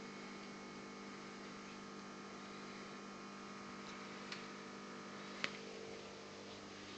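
Steady electrical hum of aquarium equipment, with two short sharp clicks, one about four seconds in and a louder one about a second later.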